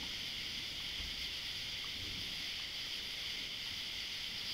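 Steady outdoor night ambience: a continuous high-pitched summer insect chorus over a low, uneven rumble of wind on the microphone.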